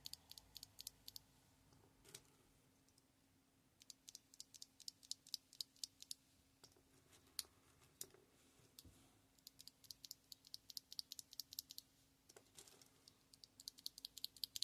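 Yuchao red (linear) mechanical keyboard switches being pressed over and over by hand: faint, quick plastic clicks in runs of several a second, with short pauses about two seconds in and around nine seconds in.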